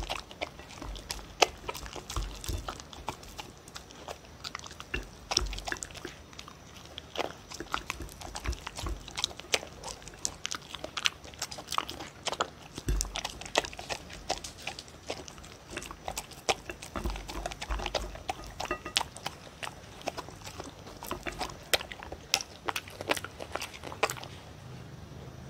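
A dog eating from a plate, close-miked: irregular crunching and clicking as it chews beef kibble mixed with pieces of sweet potato and bell pepper.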